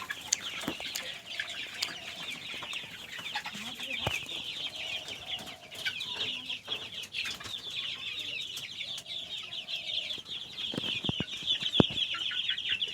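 A shed full of young local chickens, about 45 days old, peeping continuously in a dense high chorus, with lower clucks mixed in. A few sharp knocks sound, mostly near the end.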